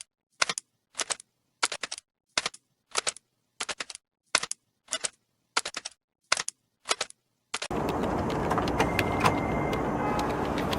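Short clusters of keyboard key clicks, a burst about every half second or so with silence between. About three-quarters of the way through, a steady dense background noise starts and replaces them.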